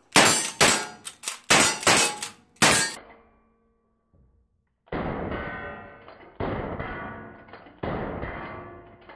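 A lever-action rifle fired rapidly at steel targets, about five shots in the first three seconds. After a short gap, music with a heavy drum beat about every second and a half.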